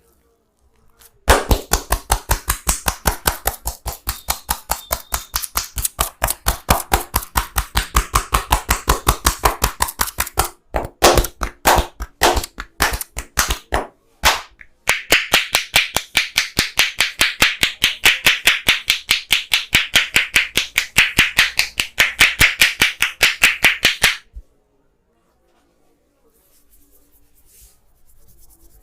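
Massage percussion: a barber's hands striking in a fast, even rhythm of about five slaps a second. About ten seconds in the strikes slow to separate claps, then resume fast with a brighter, higher tone, and stop abruptly near the end.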